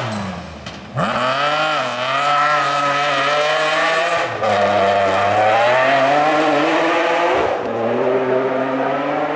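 A BMW E36 rally car's engine revving hard as the car pulls away on gravel: quieter for the first second, then the revs climb steeply and hold high, with brief lifts for gear changes about four and seven and a half seconds in. A steady high hiss runs alongside while it is under power.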